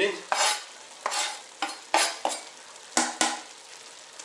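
Chopped parsley and garlic being scraped off a wooden cutting board into a cast-iron kazan, about seven quick scrapes. Between them the stew sizzles steadily in the pot.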